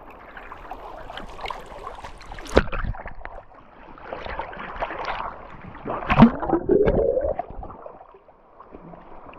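Water splashing and sloshing as a person moves through it, with two louder splashes about two and a half and six seconds in.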